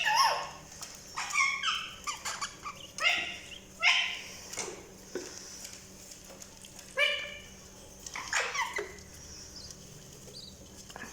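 Budgies calling in a run of short, harsh chirps and squawks, some bending up and down in pitch, coming in quick clusters and easing off near the end.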